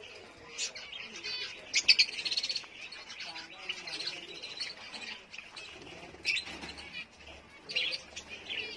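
Small birds chirping and tweeting in short, scattered calls, with a loud burst of rapid repeated chirps about two seconds in.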